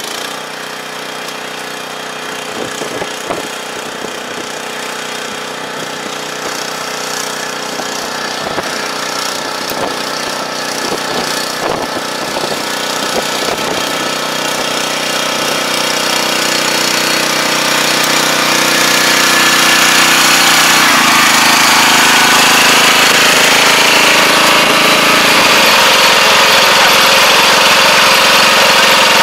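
Kubota four-row riding rice transplanter's engine running, with a clattering knock, growing steadily louder as it approaches. About two-thirds through it becomes loud and steady, heard close up from on the machine.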